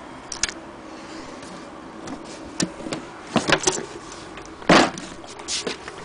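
Handling noise: a run of scattered knocks and clicks as a wooden sewing-machine case is moved and touched, the loudest a thump about five seconds in.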